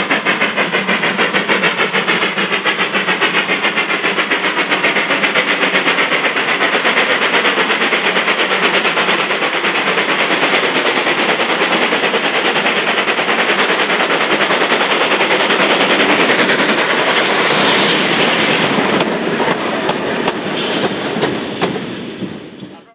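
Small 'Terrier' 0-6-0 tank steam locomotive working a train past, its exhaust beats coming fast and even. The sound grows uneven and fades away near the end as it passes.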